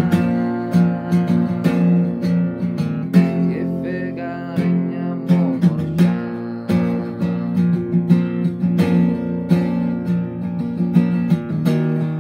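Acoustic guitar strummed in a steady rhythm, playing sustained chords in an instrumental passage of a song.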